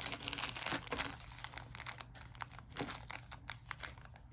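Thin plastic packaging crinkling as it is handled: a dense run of crackles in the first second, then scattered crackles.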